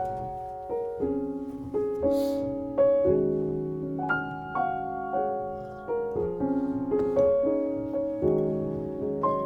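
Background music: a gentle solo piano piece with notes struck about once or twice a second.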